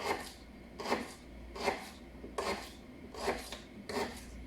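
Kitchen knife slicing through fresh ginger root on a cutting board: about six even, scratchy strokes, a little under a second apart.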